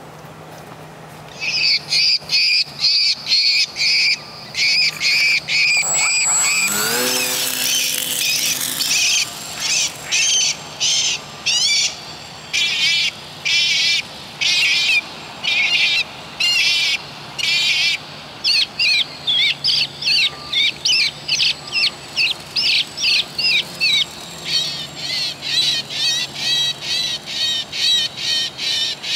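Loud, high bird-like chirping calls repeated one to two times a second, their pattern changing several times, with a rising whistle about seven seconds in.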